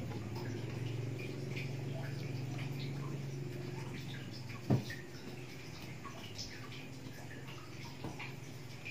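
Capcay heating in an aluminium wok, with faint scattered crackling and bubbling over a steady low hum. A single sharp knock about halfway through.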